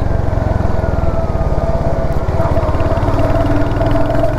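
Royal Enfield Hunter 350's single-cylinder engine running steadily under way, with quick even firing pulses and a steady whine over them. It carries the 'tar tar' rattle the rider complains of after the third service, which he suspects comes from inside the engine rather than the chain.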